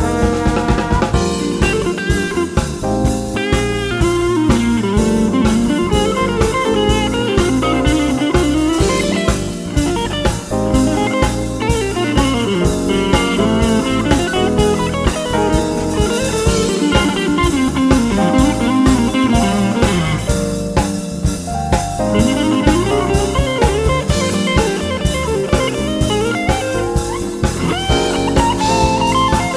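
Funk-jazz band playing: an electric guitar lead with notes sliding up and down over bass guitar and drum kit.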